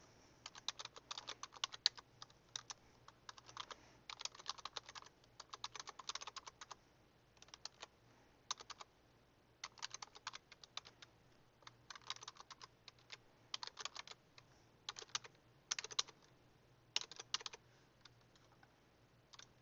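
Computer keyboard typing in short runs of keystrokes with brief pauses between them.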